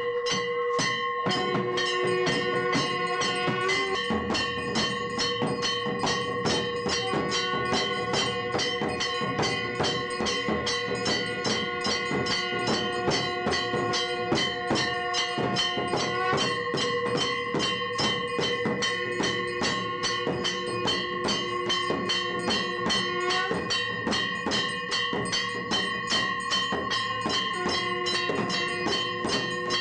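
Temple aarti bells and metal percussion struck in a fast, even beat, several strokes a second, with steady ringing tones held over it throughout.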